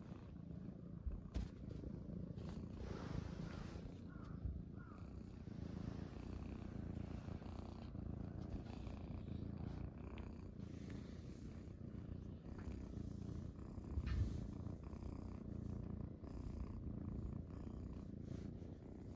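Domestic cat purring steadily, close up, with a couple of soft knocks from handling.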